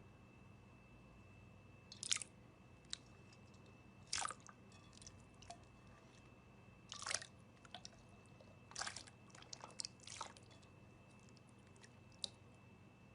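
A knife or carving tool cutting into a bar of dry soap, making short crisp crunches and crackles, about six or seven at irregular intervals.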